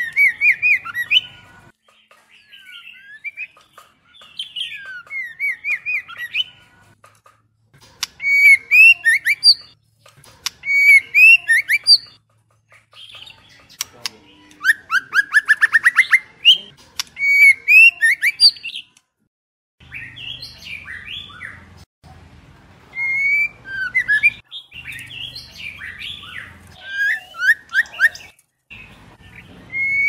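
White-rumped shamas calling and singing in short bursts of varied whistles, chips and harsh chattering notes, with a fast run of rising notes about halfway through.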